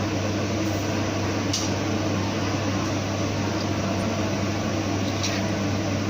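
CNC plasma cutting machine running: a steady electrical hum with a hiss over it, and two faint ticks.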